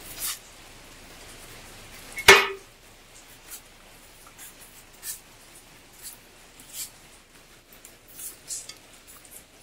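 Rain dripping, with single drops ticking sharply at irregular intervals over a faint hiss. One loud, sharp knock comes about two seconds in.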